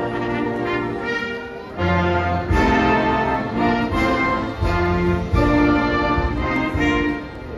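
Live orchestra with prominent brass playing slow, held chords that change every second or so.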